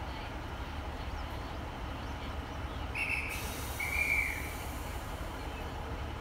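A railway dispatcher's whistle sounds twice, a short high blast and then a slightly lower, longer one, signalling the train ready to depart. Under it the Class 150 diesel multiple unit idles with a steady low hum, and a high hiss starts with the first blast.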